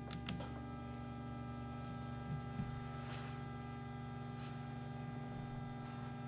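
Faint steady electric hum with a few light ticks: the servo motor of the 2019 Kawasaki H2 SX SE+'s electronic rear suspension running as it changes the shock's preload setting.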